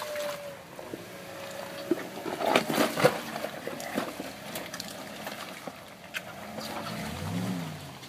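Jeep Wrangler climbing a muddy rock slope: its engine revs as the big mud tires spin and churn through wet mud, with a burst of splattering mud and knocking stones about two and a half to three seconds in. Near the end the engine pitch rises and falls once.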